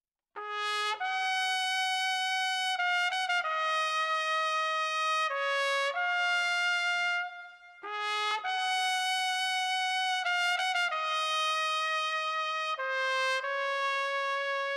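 Background music: a slow solo trumpet melody of long held notes, one note at a time, in two phrases with a short break about halfway through.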